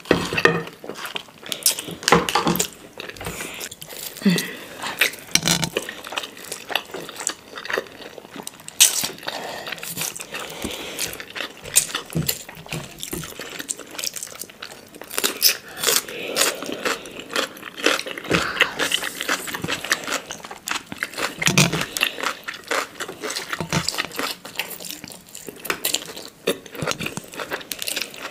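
Close-miked eating sounds: two people slurping and chewing instant noodles, with a dense run of wet mouth clicks and smacks and now and then a fork or chopsticks knocking on a plate.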